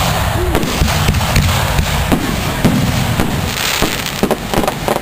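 Aerial firework shells bursting overhead: a series of sharp bangs, with a quick cluster of pops in the last second.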